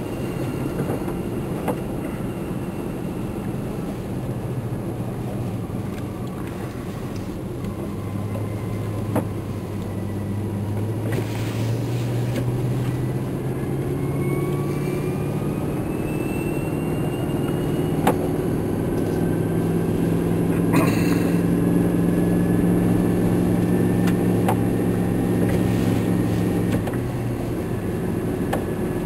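Vehicle engine running while driving through snow, its pitch slowly rising as it pulls for a long stretch, then dropping near the end. A few sharp clicks and knocks come through along the way.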